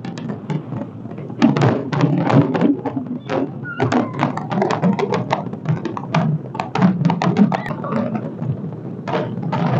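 Fireworks bursting in a rapid, irregular run of bangs, several a second, over the voices of a large crowd.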